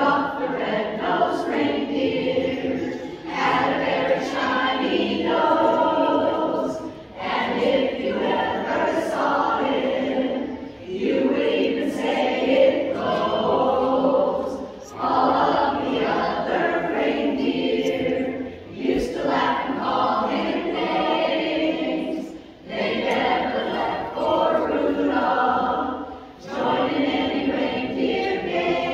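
Barbershop chorus singing a cappella in close harmony, in phrases of three to four seconds with brief pauses for breath between them.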